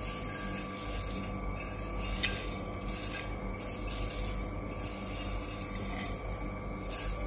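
Crisp, dry fried shallot slices rustling and crackling as wooden chopsticks stir and push them across a plate, in soft repeated swells, with one sharp click about two seconds in. A steady high whine runs underneath.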